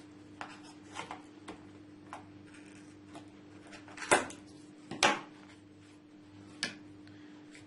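Scissors snipping through wound yarn: a string of short, sharp clicks, the two loudest about four and five seconds in, over a faint steady hum.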